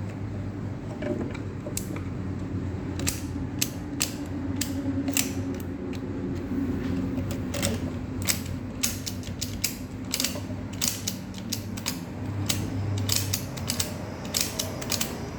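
Repeated sharp clicks and small metallic rattles of a 2001 Toyota Camry ignition lock cylinder being worked with its key, coming faster in the second half, over a steady low hum.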